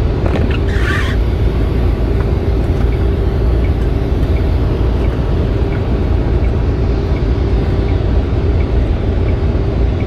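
Steady low rumble of engine and tyre noise inside a semi truck's cab at highway speed, with a brief hiss about a second in.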